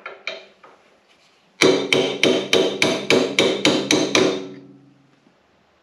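Steel hammer blows driving a roll pin out of the drive shaft of a Fella KM 270 disc mower. A few light taps come first, then about a second and a half in a fast run of about a dozen ringing metal strikes, about four a second, which stops a little after four seconds.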